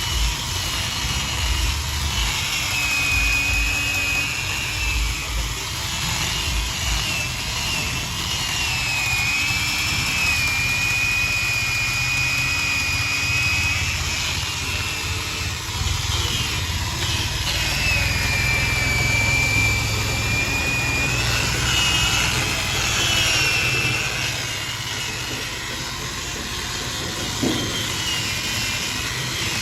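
Power saw running through wood, a steady rumble with a high whine that sags and recovers as the blade meets the cut. A short knock near the end.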